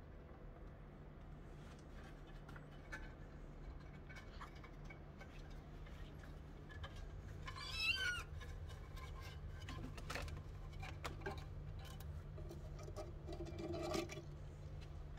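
Kitten giving one high, wavering mew about halfway through, over a steady low hum, with scattered light taps and scratches.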